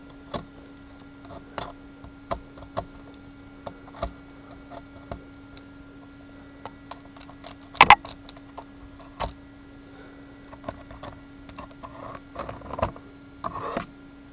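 Light clicks and taps of a carbon fibre drone arm, a plywood arm and a marker pen being handled on a tabletop, with a sharp double click just before the middle and brief scraping near the end. A faint steady hum runs underneath.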